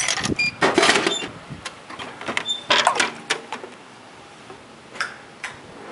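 Coins clinking and clicking into a drinks vending machine's coin slot in the first second or so, then a louder clatter about three seconds in as the machine dispenses a can into its tray, with a few lone clicks after.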